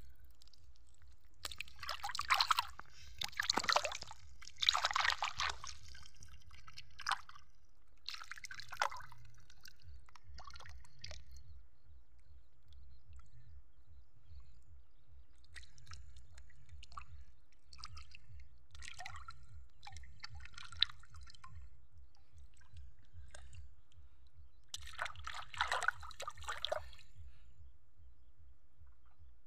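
Water splashing and mud squelching as hands and a struggling fish churn shallow muddy water, in bursts: a loud cluster a couple of seconds in, another around eight seconds, smaller splashes through the middle, and a loud cluster near the end.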